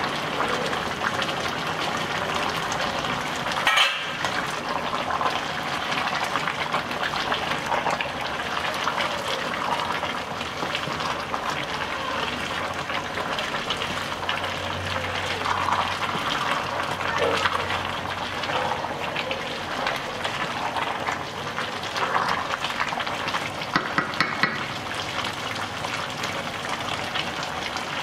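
Young jackfruit bubbling in broth in a metal pot while a spoon stirs it, with scraping and occasional knocks of the utensil against the pot; the sharpest knock comes about four seconds in.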